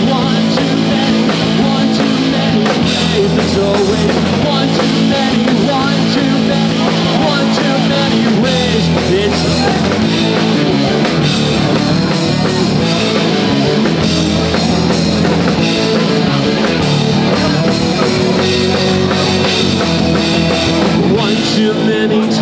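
Live rock band playing at full volume: electric guitars over a drum kit, with no words in the passage.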